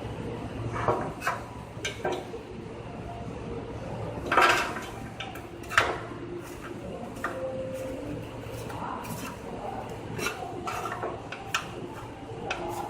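Metal parts clinking and knocking against each other in short, irregular strikes, the loudest a little after four seconds and near six seconds in, over a steady low hum.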